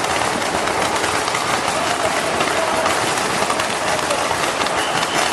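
A string of firecrackers going off, a dense, unbroken rapid crackle of small bangs.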